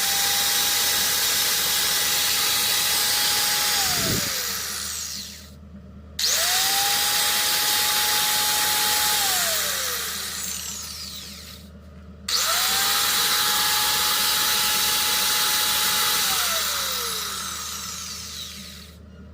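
Electric cutting machine's motor running with a steady whine, switched off about four seconds in and winding down, then switched on twice more. Each time it spins up fast to the same pitch, runs for a few seconds and winds down again: a short test run after repair.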